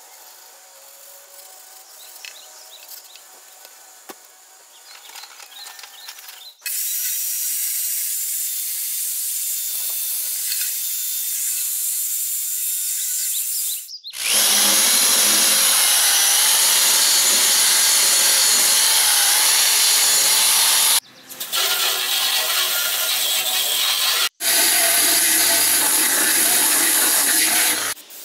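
A steel-wool soap pad scrubbing lightly on the grill's sheet-metal burner tray. Then, from about six seconds in, a loud steady hiss of an aerosol can of high-heat spray paint in several long bursts, each ending in a sharp cut.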